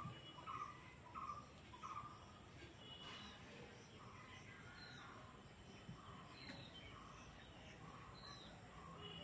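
Faint crow cawing: a run of short caws in the first two seconds, then fainter ones later, with occasional higher bird chirps.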